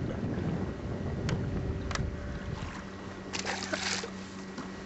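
Wind buffeting the camcorder microphone over open water, with a low rumble that fades about halfway through. There are a couple of sharp clicks and then, a little past three seconds in, a short noisy burst.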